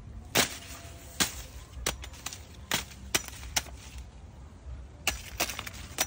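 Sickle blade hacking through green corn stalks: a series of about nine sharp chops at irregular intervals.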